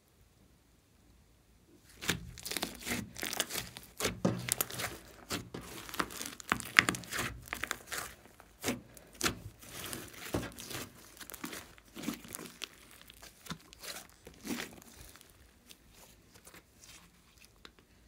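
Glossy slime mixed with floam beads being stretched, pressed and folded by hand, giving dense crackling and popping of trapped air and squished beads. It starts about two seconds in and grows sparser and fainter toward the end.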